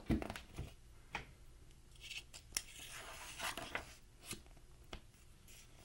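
Picture book pages being handled and turned: a few short paper rustles with light clicks and taps.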